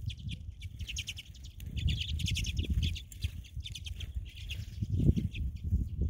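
Small songbirds chirping and twittering in quick, rapid runs of notes, over a low rumble on the microphone that swells about five seconds in.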